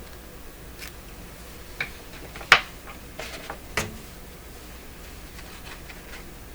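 A few sharp clicks and taps of small objects being handled, the loudest about two and a half seconds in, followed by fainter ticks.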